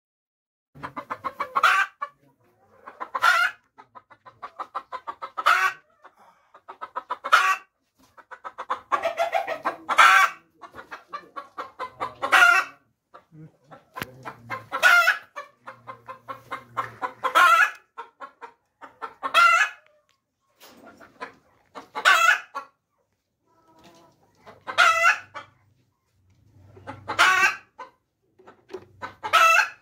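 Domestic hen cackling over and over: each call a run of quick clucks that builds into one loud, higher squawk, repeating about every two to two and a half seconds.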